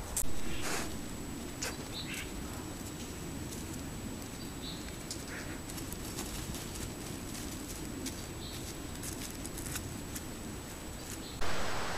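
Deer walking over dry leaf litter: scattered light steps and rustles over a steady background hiss, with a few short chirps. Just before the end the sound jumps to a louder, steady rushing hiss.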